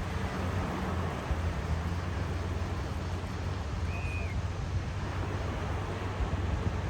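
Sea waves washing in a steady wash of noise, under a constant low rumble like wind on the microphone. A single short high chirp, like a bird call, sounds about four seconds in.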